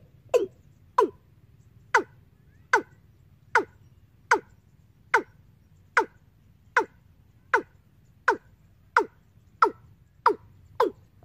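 Recorded bird call played through a bird-trapping amplifier's horn loudspeaker: a series of short notes, each sliding quickly down in pitch, about one a second, coming a little faster near the end.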